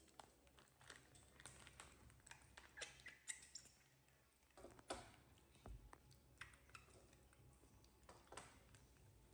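Near silence broken by scattered faint clicks and light rustling, irregular and a few per second.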